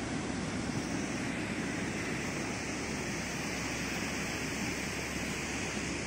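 Steady rushing of a fast, swollen river running high and muddy after rain.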